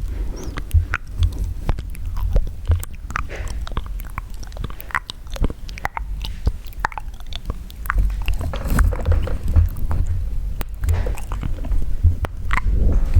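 Close-miked wet mouth sounds: irregular sharp clicks and smacks of tongue, lips and saliva, over a low rumble.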